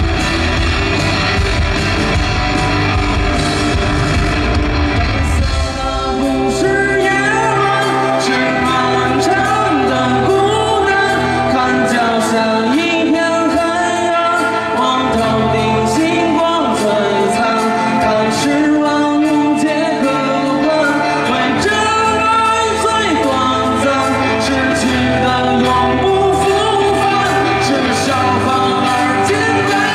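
Live pop-rock band music from the stage: guitar and drums, with a heavy low beat that thins out about six seconds in, where a singing voice comes in over the band.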